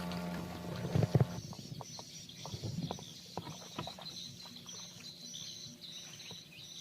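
A small boat's motor hums steadily, then cuts off suddenly about a second and a half in, just after a couple of loud knocks. After that comes steady high-pitched chirping in a quick repeating rhythm, with scattered light clicks and knocks.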